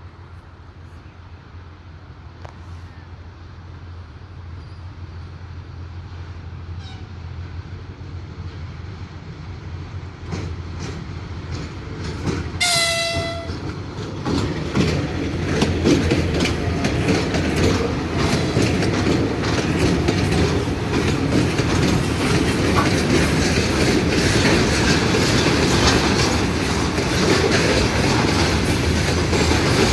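A train approaching and growing steadily louder, sounding one short horn blast about halfway in, then passing close with its wheels clattering over the rail joints.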